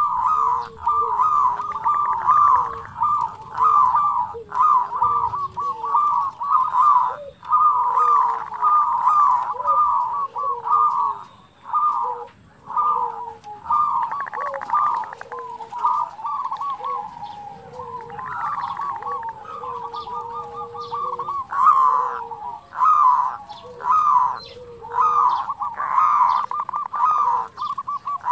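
Zebra doves (perkutut) singing: fast, rolling staccato coo phrases at one middle pitch, one after another almost without pause, over lower gliding coos.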